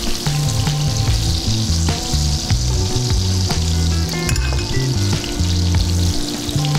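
Breaded burger patties sizzling in a cast-iron skillet: a steady frying hiss, with a few light clicks.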